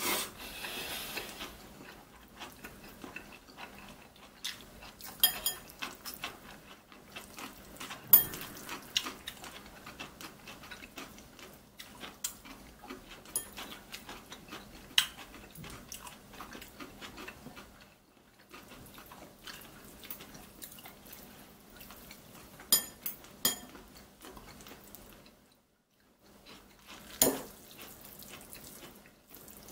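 Metal chopsticks mixing sauced noodles in bowls: irregular sharp clicks and clinks of the chopsticks against the bowls, with soft stirring noise between them.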